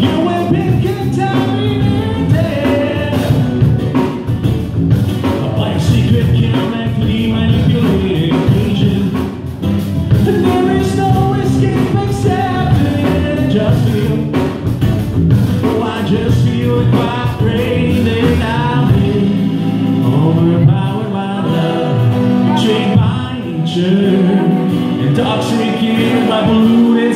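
Live acoustic band: a man singing to his own acoustic guitar, with an electric bass guitar underneath.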